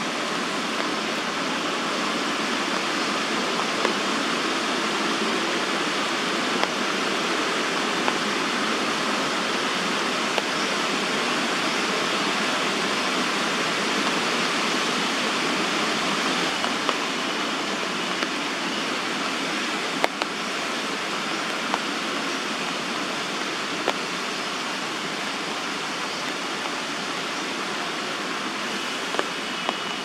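Steady hiss of rain falling on the tree canopy, with a few sharp ticks scattered through it.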